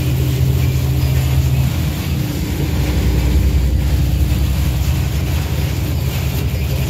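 Steady low engine and road drone inside a vehicle's cabin while driving in heavy rain, with a hiss of wet tyres and rain. A low hum in the drone drops away about two seconds in.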